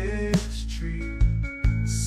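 Background music: a song with held instrumental chords and a few drum hits, no singing in this stretch.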